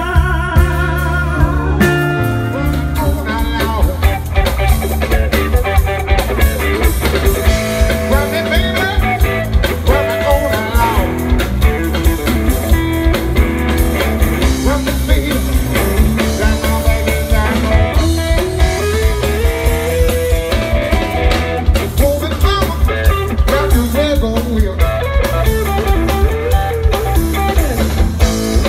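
Live blues-rock band: electric guitar playing lead lines with bent notes over drums and bass, with a strong steady beat. About two seconds in the music changes over from a previous song.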